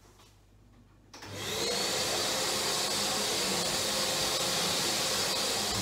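A vacuum cleaner switched on about a second in: its motor spins up with a rising whine and then runs steadily.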